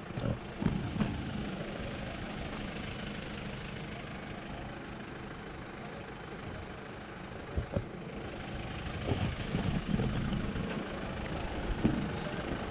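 Motor vehicle engine idling steadily, with a few brief knocks and thumps.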